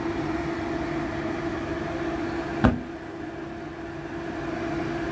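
Steady kitchen hum over the rush of a gas stove burner; about halfway through, a sharp click as the stove knob is turned down to the lowest flame, after which the rush is a little quieter.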